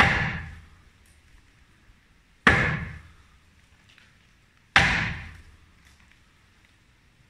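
Sledgehammer blows on the balcony, three heavy strikes about two and a half seconds apart and a fourth at the very end, each ringing on for about a second as it fades.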